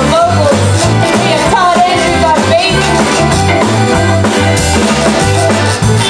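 A live Cajun band playing loudly: accordion, saxophone, electric guitar, bass and drum kit over a steady beat.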